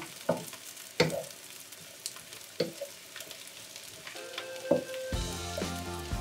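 Fish cake and onion sizzling in a frying pan while a wooden spatula stirs them, with a few sharp knocks and scrapes of the spatula against the pan. Background music comes in about five seconds in.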